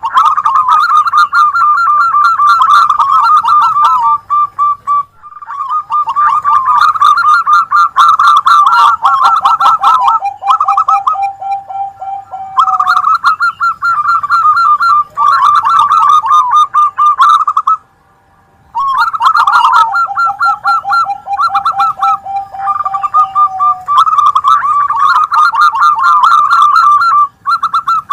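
Several zebra doves (perkutut) singing at once: rapid, rippling cooing phrases overlapping one another, one voice pitched higher and another lower and steadier. The song breaks off abruptly for about a second about two-thirds of the way through, then resumes.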